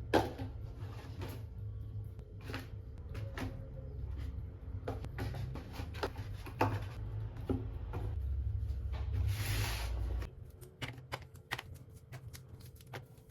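Groceries being handled and put away in a fridge: scattered clicks and knocks of items and containers being set down, with a short rustle of packaging about nine seconds in. A low hum runs underneath and stops about ten seconds in.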